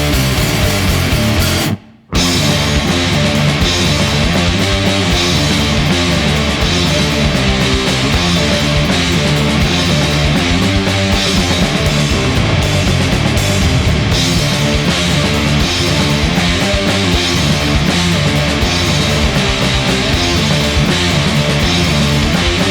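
Loud stoner rock recording of distorted electric guitars, bass and drums, playing without vocals. About two seconds in the whole band stops dead for a moment, then crashes back in.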